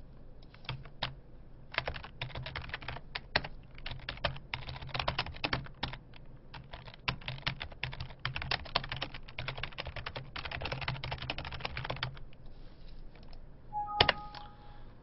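Computer keyboard typing: quick key clicks in uneven bursts that stop about twelve seconds in. Near the end there is one click with a short beep.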